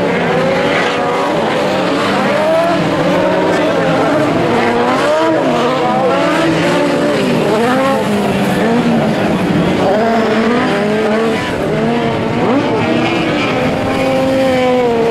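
Several VW Beetle-based autocross cars racing together, their engines revving up and down as they accelerate and shift, overlapping one another.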